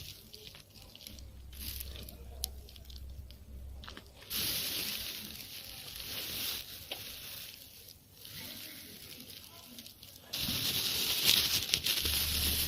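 A dog and another animal eating dry pet food: scattered crunching and rustling, denser and louder in the last couple of seconds.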